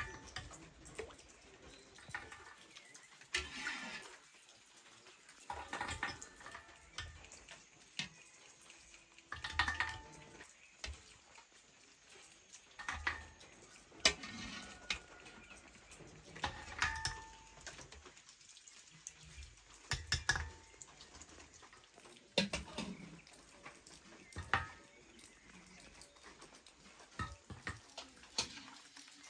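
Yogurt and water sloshing and glugging inside a clay butter-churn jug, in irregular splashes a second or two apart.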